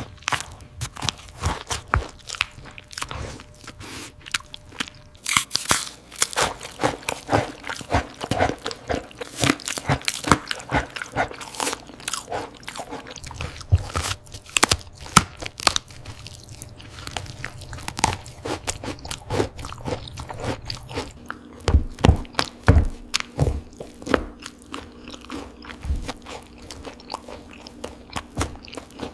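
German Shepherd biting and chewing food, with loud, irregular crunches coming several times a second.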